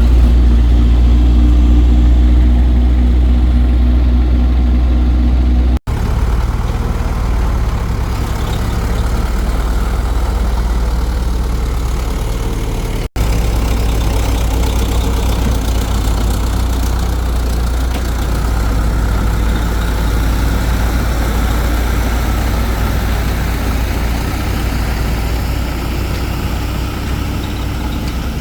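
Heavy excavator engine running steadily at a low pitch, with two brief breaks where the sound cuts out for an instant.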